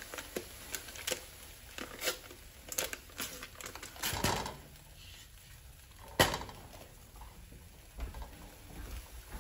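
Kitchen handling sounds as a stick of butter is put into a pot: scattered light clicks and rustles, a louder rustle about four seconds in, and one sharp knock about six seconds in.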